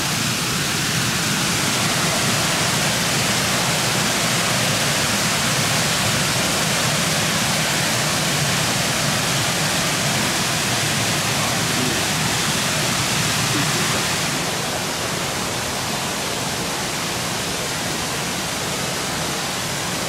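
Steady rushing of a small waterfall and river cascade pouring over rock ledges. It eases slightly about two-thirds of the way through.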